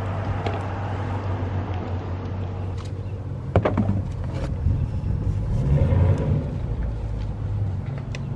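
A car engine idling steadily with a low hum, with a sharp click about three and a half seconds in and a brief swell around six seconds.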